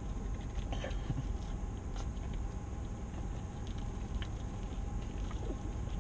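A man chewing a huge mouthful of cheeseburger, with faint wet mouth sounds and scattered small clicks, over a steady low hum.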